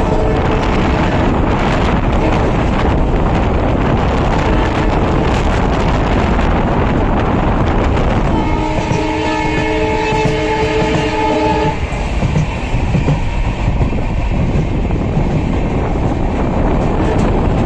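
Passenger train running, with a loud, steady rumble of wheels on the rails; about eight seconds in, the WDP4B diesel locomotive's horn sounds for about three seconds as a chord of several tones, after a fainter horn note at the start.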